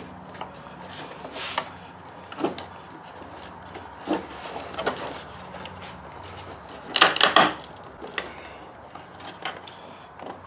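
Plastic clicks, knocks and creaks from a Ford Edge side mirror's glass and housing being pulled and pried by hand against its retaining tabs. A cluster of sharper clicks comes about seven seconds in.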